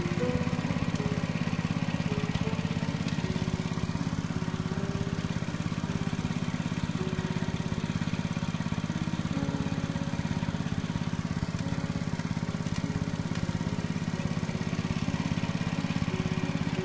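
Small petrol engine driving a water pump, running steadily at constant speed as it pumps water out of a muddy pond.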